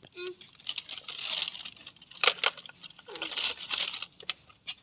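Crinkling and rustling of plastic and rubbish being rummaged through by hand, in two spells with a few sharp clicks between.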